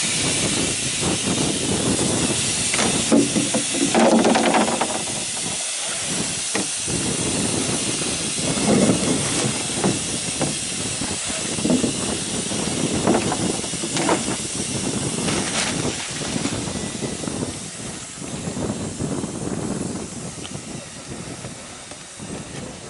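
Steady hiss of gas venting from a freshly inflated liferaft through its pressure relief valves: it sounds as if the raft were deflating, but this is normal. The hiss slowly fades toward the end, with rustling and knocks as the raft and its container are handled.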